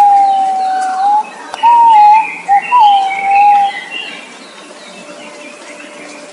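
Green pigeon singing: a series of fluting whistles, one long held note at the start, then shorter wavering ones, ending about four seconds in. Other small birds chirp higher and fainter throughout.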